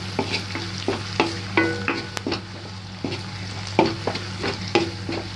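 A plastic spatula stirring a sizzling garlic-and-chilli sauce in a non-stick kadhai, with irregular scrapes and knocks against the pan, several a second, over the steady sizzle. A low steady hum runs underneath.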